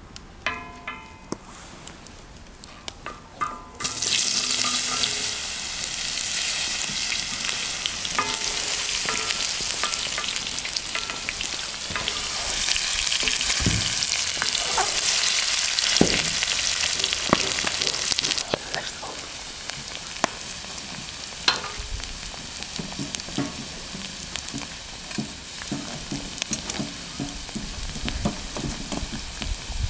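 Diced raw potatoes hitting hot oil in a wide iron pan over a wood fire: a sudden loud sizzle about four seconds in, after a few light clicks. Wooden-spoon stirring scrapes the pan, and the sizzle drops to a quieter steady level about halfway through.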